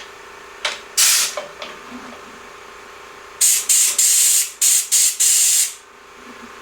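Pressurised spray hissing in short bursts: one brief burst about a second in, then about five quick bursts in the middle, over a faint steady hum.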